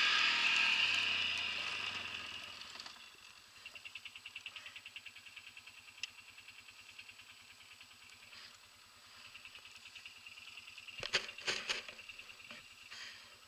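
ATV engine slowing down, its note falling over the first few seconds, then settling into a steady, rapid idle. A few sharp knocks sound close together near the end.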